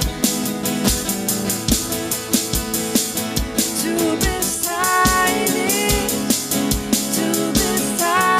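Worship band music: a drum kit keeps a steady beat under a sustained, sliding melody line.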